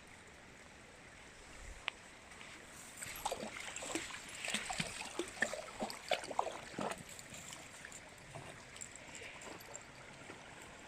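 A dog splashing through shallow river water: a few seconds of irregular splashes starting about three seconds in, then dying away.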